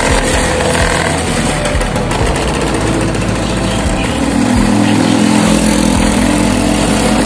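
Motor scooter engine running while riding, with wind rushing over the microphone; a steadier engine hum comes through from about four seconds in.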